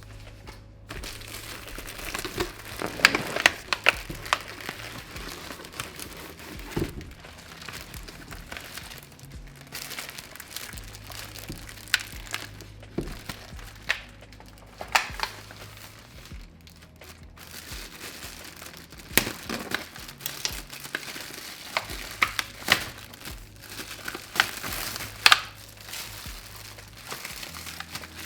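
Packaging being handled and pulled open while a new electric kettle is unboxed: irregular crinkling and rustling, with sharp crackles and tearing.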